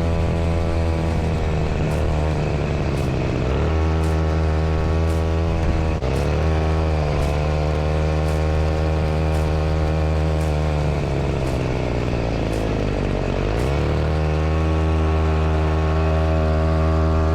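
Truck engine running steadily under way, its pitch dropping and then picking back up a few times as the gears change. A faint tick sounds about once a second.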